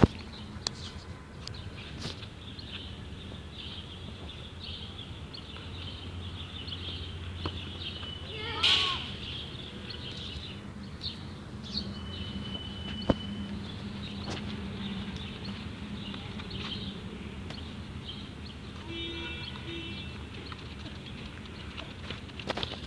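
A football kicked on an outdoor hard court: a few sharp thuds, the hardest right at the start and another about thirteen seconds in, over steady outdoor background noise. About nine seconds in comes a short, wavering cry.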